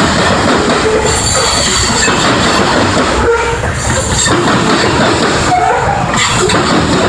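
Covered hopper cars of a freight train rolling past at close range: a steady rumble of steel wheels on the rails, with brief high wheel squeals coming and going.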